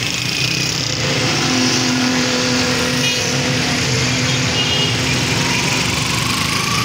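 Steady motor vehicle noise, with a tone rising in pitch near the end.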